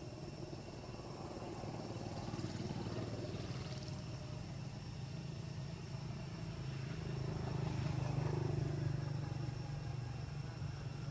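Motor vehicle engine droning past, the sound swelling and fading as it goes by, loudest about two-thirds of the way through.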